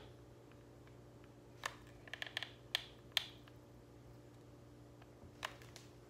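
Hot glue gun and artificial flower stem being handled while gluing: a handful of faint clicks and ticks, most of them bunched a couple of seconds in and one more near the end, over a low steady room hum.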